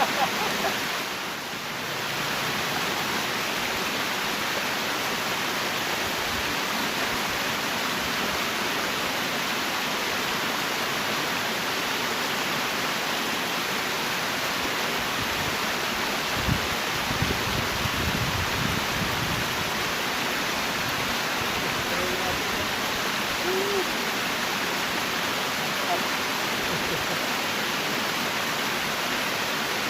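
Steady rush of river water pouring over a small dam's weir, with a few low bumps about halfway through.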